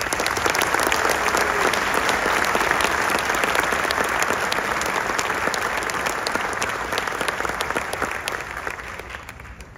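Audience applauding: many people clapping together, starting all at once and slowly fading away over the last couple of seconds.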